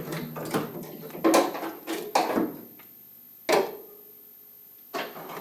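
Shifter cables and parts being handled against the car body: a few separate knocks and clunks, about four, each with a short ringing tail, between quieter rustling.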